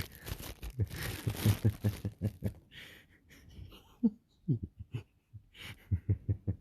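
Breathy, wheezing, held-in laughter in short rapid pulses, with packaging crinkling during the first couple of seconds.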